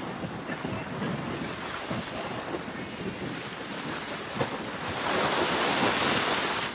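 Steady rushing outdoor noise, swelling louder about five seconds in and easing off near the end.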